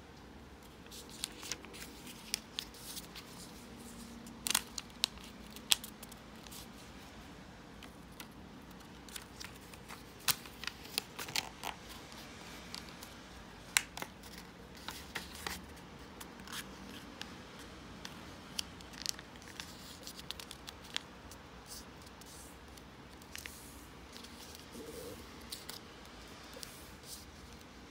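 Origami paper being folded and creased by hand: irregular sharp crackles and clicks as fingers press and smooth the folds.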